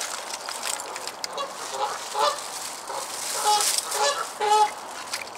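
Geese honking: a run of about six short honks, roughly half a second apart.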